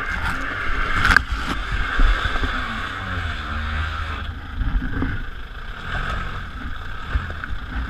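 White pickup truck driving on a rough dirt track, heard from a camera mounted low on its body: a steady low engine and road rumble under a constant hiss, with a few sharp knocks, two close together about a second in.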